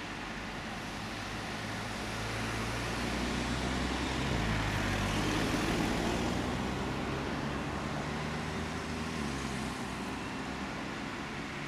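A motor vehicle driving past: its engine and tyre noise grow louder to a peak about halfway through, then fade away.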